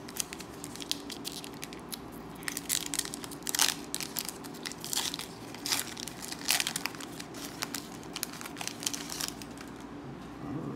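Foil Pokémon Hidden Fates booster pack wrapper being torn open and crinkled by hand: irregular sharp crackles and rips that die away near the end.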